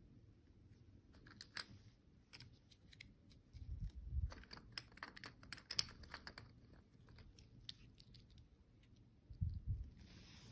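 Candy packaging and pieces being handled: a run of small clicks, taps and crinkles, densest about four to six seconds in, with a soft low thump near the start of that run and another near the end.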